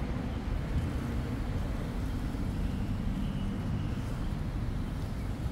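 Steady low rumble of road traffic passing on a city street.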